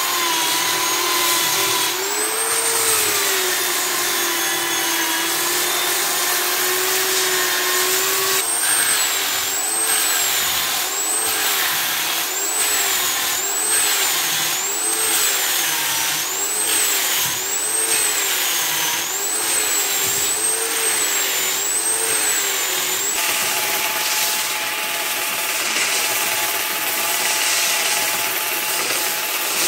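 A small handheld disc sander whining as it sands cured resin inside a wooden bathtub, its pitch wavering up and down about once a second as it is pressed and moved. About three-quarters of the way through it gives way to an angle grinder with a sanding disc, running steadily with a different, higher whine.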